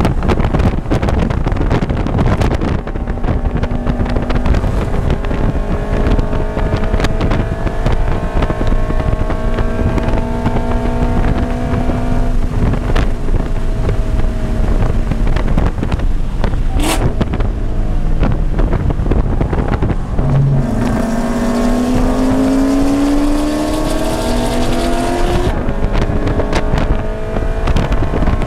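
2013 Scion FR-S flat-four engine, fitted with an aftermarket header and tune, run hard at high revs under full throttle, heard from inside the cabin. Its pitch climbs steadily through each gear and drops at the shifts, over steady wind and road noise.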